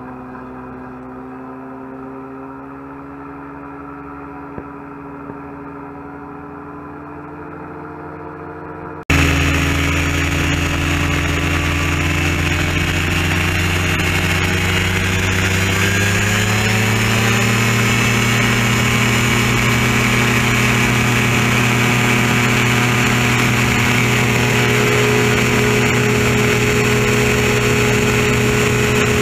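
Gyroplane's engine and pusher propeller running on the ground, a steady hum that turns abruptly much louder about nine seconds in; some seconds later the pitch climbs and then holds steady as it powers up for the takeoff run.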